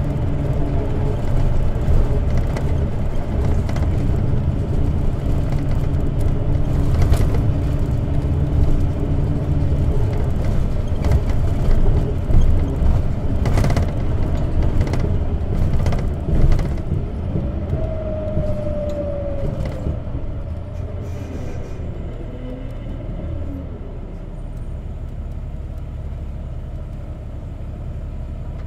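Inside a CNG-powered Isuzu Erga city bus under way: a steady low engine and road rumble with occasional sharp knocks and rattles. About two-thirds of the way in the rumble eases off, with a brief falling whine, settling to a quieter steady rumble near the end.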